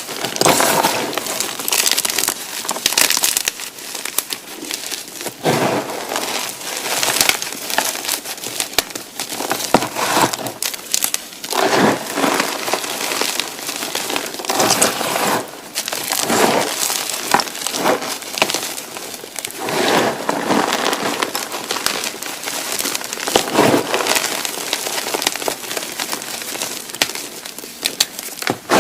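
Blocks of gymnastic chalk being crushed by hand, crumbling with dense, gritty crunching and many sharp crackles that come in repeated squeezes.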